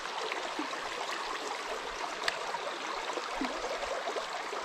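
Small rocky brook running over stones, a steady rush and trickle of water.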